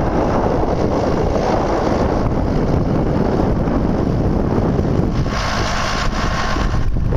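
John Deere 6410 tractor's 4.5-litre four-cylinder diesel engine running as the tractor drives, under heavy wind noise on the microphone. A little past five seconds in, the sound turns hissier for about a second.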